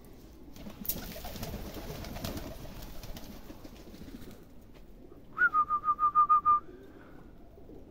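A quick whistled trill of about eight short, evenly spaced notes, opening on a brief rising note, sounds about five seconds in over handling and rustling noise around a pigeon loft.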